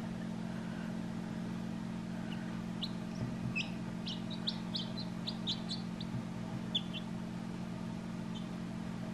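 Newly hatched chicks peeping: a scatter of short, high cheeps, bunched through the middle, over a steady low hum.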